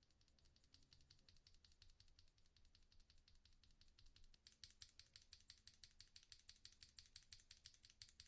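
Fast typing on a mechanical keyboard: a quick, steady run of soft key clacks, getting louder about halfway through.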